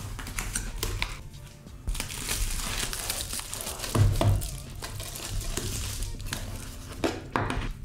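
Cardboard packaging and plastic bubble wrap rustling and crinkling as the box is opened and the wrapped camera is handled, with a couple of soft knocks, over background music.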